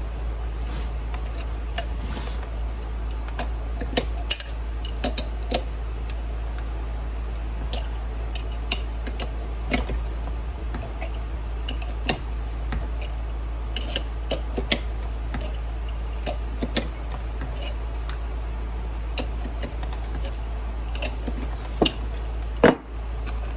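Scattered light metallic clicks and ticks of an adjustable wrench and a cam bearing install tool being handled on a Shovelhead engine case, with one louder metal clack near the end. A steady low hum runs underneath.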